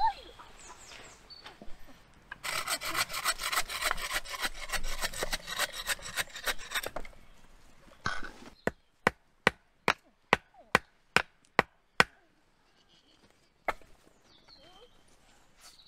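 A hand saw cutting wood in quick rasping strokes for about four seconds. After a short pause come about ten sharp knocks, evenly spaced at two or three a second.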